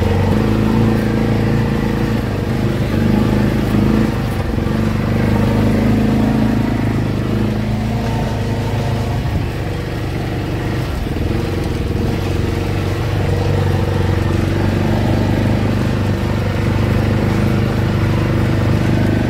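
Utility side-by-side's engine running steadily while it drives along a snowy track, heard from inside its cab, easing off slightly about halfway through.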